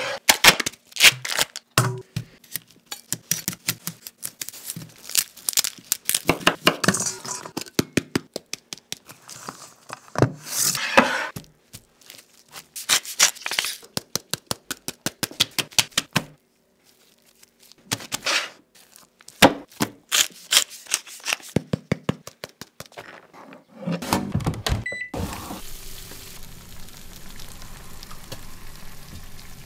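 Close-up kitchen sounds of raw chicken being prepared on a wooden cutting board: quick taps, clicks and scrapes of hands, utensils and seasoning on the board and meat, in clusters with short pauses. About 24 seconds in a low thump leads into a steady hiss as the cheese-topped chicken bakes in the oven.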